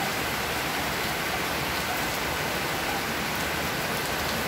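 Heavy rain falling steadily on a wet paved street with standing floodwater: an even, unbroken hiss.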